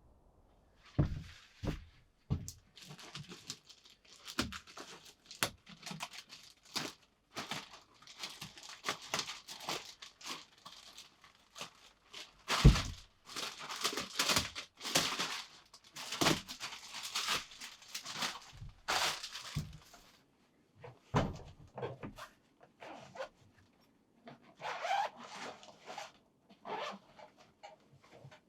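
Hands working with materials: irregular rustling, scraping and tearing noises with scattered knocks and thuds, the loudest thud about twelve seconds in.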